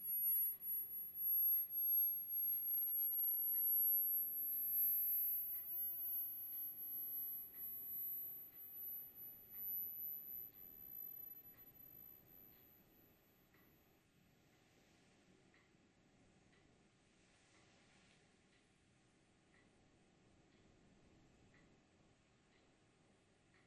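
18 cm brass Chladni plate driven by a linear sine-wave sweep, sounding a single high pure tone that rises slowly from about 11 kHz to about 13 kHz late in the 50 Hz–16 kHz sweep. Its loudness wavers up and down, loudest near the end.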